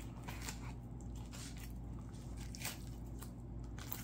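Knife cutting through a largemouth bass's rib bones as it is filleted: a series of faint, irregular crunching clicks as the blade pops over the bones.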